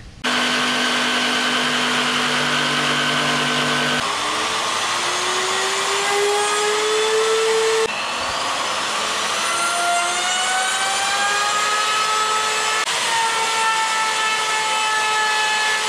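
Handheld electric wood router running and cutting along the edge of a pine board, a loud, steady whine with cutting noise. In several stretches the whine climbs slowly in pitch, with sudden jumps between them.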